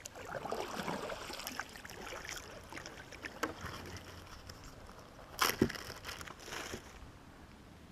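A kayak paddled across the river: the paddle dips and splashes in the water, with one sharp, louder hit about five and a half seconds in.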